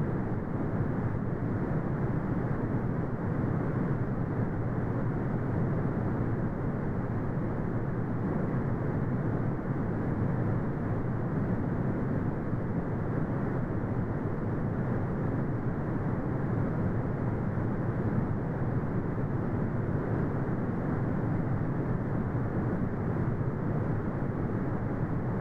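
Brown noise: a steady, deep rumbling hiss with most of its energy in the low end and nothing above the upper midrange, unchanging throughout.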